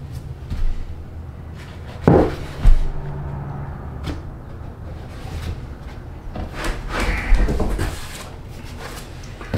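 SmartCore waterproof laminate flooring plank handled and set down on a plywood subfloor: two sharp knocks about two seconds in, then a cluster of smaller knocks and scraping around seven seconds in as the plank is pressed into place.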